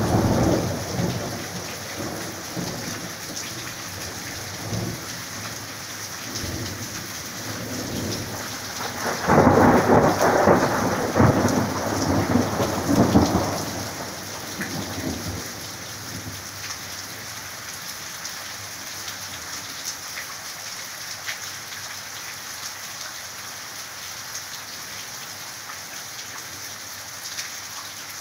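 Thunderstorm: steady rain falling throughout, with thunder rumbling and dying away at the start, then a second, louder roll of thunder lasting about four seconds a third of the way through, after which only the rain is left.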